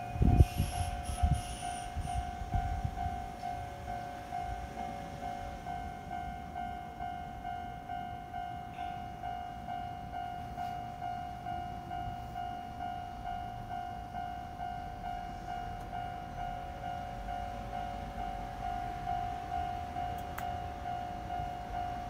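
Japanese level-crossing warning alarm ringing: an electronic ding repeated at a quick, even beat while the crossing lights flash and the barriers are down. A few heavy low thuds and rumble in the first three seconds are the loudest sounds.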